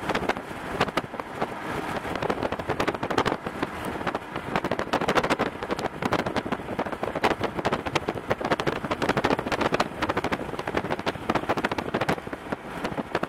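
Rain drumming on a moving car, a dense, irregular patter of drops striking the body and windshield over road and wind noise.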